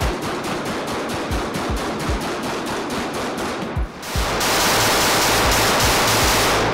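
Rapid 9mm shots from a CZ Shadow 2 pistol, a quick string of sharp reports over background music. From about four seconds in, a loud steady rushing noise covers everything.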